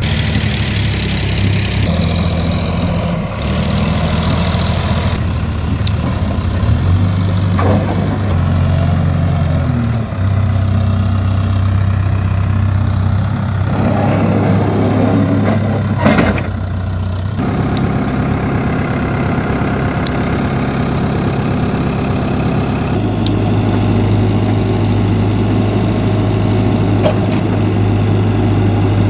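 Backhoe loader's diesel engine running steadily with a deep, even hum. Its tone shifts abruptly several times, and there is a brief burst of louder clatter a little after the midpoint.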